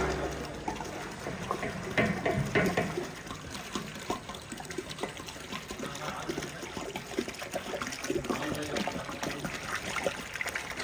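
Water pouring from a large plastic water can into a big aluminium cooking pot, splashing into the water already in it.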